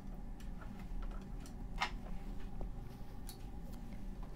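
Irregular light clicks and taps of oil-painting brushes and tools being handled, the strongest a little under two seconds in, over a steady low room hum.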